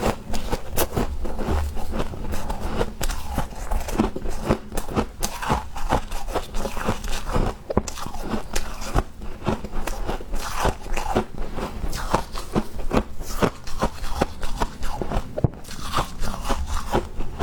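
Freezer frost being bitten and chewed: a quick, irregular run of crisp crunches, several a second.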